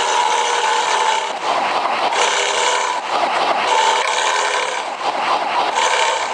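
Multi-tone bus horn playing the 'bumel batuk berdahak' sound: a run of held, many-toned notes that change chord every second or so.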